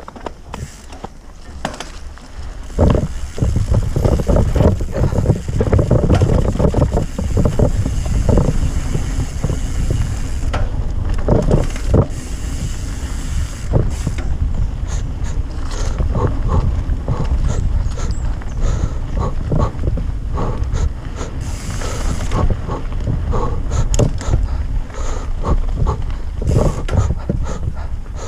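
Mountain bike ridden fast down a dirt singletrack: wind buffeting the camera microphone, with tyres on dirt and frequent knocks and rattles from the bike over bumps. It gets much louder about three seconds in as the speed picks up.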